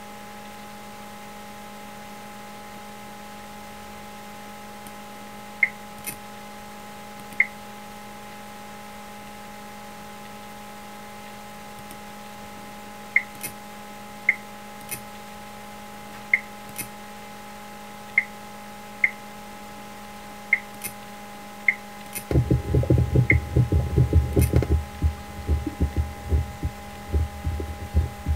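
Steady electrical hum with a dozen or so short, sharp interface clicks at uneven intervals. About 22 seconds in, a loud, low heartbeat sound effect starts and pulses on for about six seconds with the animated heart.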